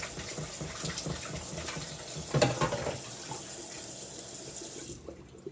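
Kitchen tap running water into a container of peeled potatoes to keep them from browning, shut off near the end. One short clunk about two and a half seconds in.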